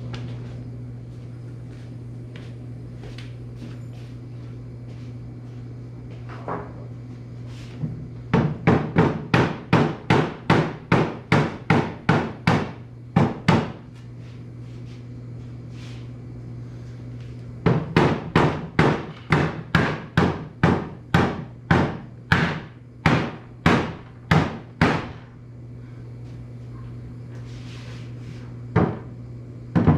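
Hand hammer driving nails into cedar boards: two long runs of quick, even blows, about two a second, the first lasting about five seconds and the second about seven, with a few more strikes near the end. A steady low hum runs underneath.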